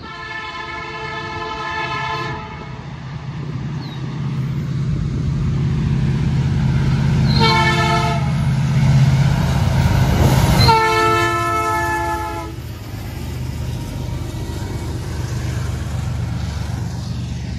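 Air horn of a CN diesel freight locomotive sounding for a grade crossing: a long blast, a short one about seven seconds in, and another long one about ten seconds in. Under it the locomotives' diesel engines rumble, growing louder as they approach and loudest as they pass the crossing.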